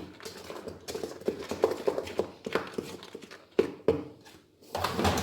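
A utensil stirring and folding a thick whipped-cream mixture in a bowl, giving irregular knocks and taps against the bowl, with a louder cluster near the end.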